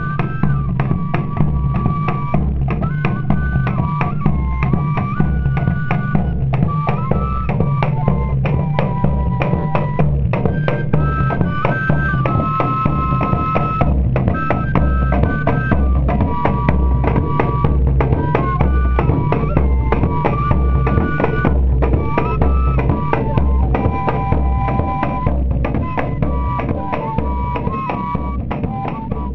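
Pífano band music: fifes play a stepwise melody, two lines moving together, over a steady beat of bass drum (zabumba) and snare. The music eases down in level near the end.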